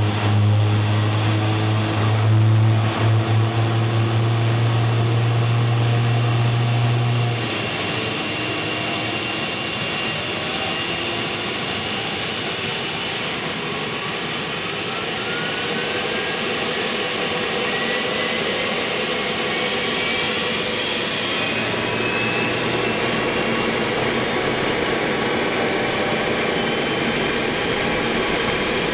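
Sikorsky MH-60S helicopter starting up on its APU, heard from the cockpit. A strong low hum stops about a quarter of the way in. Then the whine of a T700 turboshaft engine spooling up during its start rises steadily in pitch through the middle and settles into a high whine over a steady roar.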